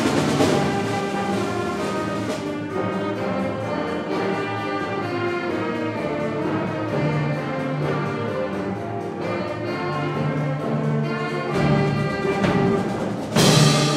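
Eighth-grade concert band playing: brass and woodwinds holding sustained chords over low brass, with a sudden loud crash about a second before the end.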